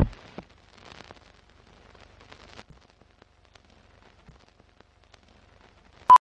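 Old-film countdown-leader sound effects: a loud burst at the start that quickly dies away, then faint crackle and scattered clicks like worn film running through a projector, and a short beep about six seconds in.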